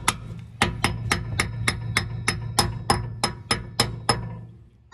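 Hammer tapping a metal hubcap onto a farm rock picker's wheel hub to seat it over the freshly adjusted wheel bearing. About fourteen quick, evenly paced strikes with a short metallic ring, roughly three a second, stop about four seconds in, and one more strike lands at the very end.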